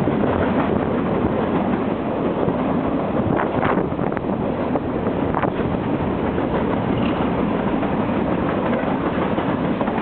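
Freight cars of a mixed freight train rolling past close by: a steady, loud rumble of steel wheels on rail, with a few brief sharp noises a little past the middle.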